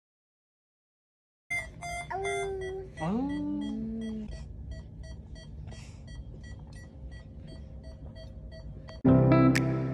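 Silence for about a second and a half, then a hospital patient monitor beeping repeatedly at a steady pace, with a toddler making a few brief sliding vocal sounds about two to four seconds in. Guitar music comes in loudly near the end.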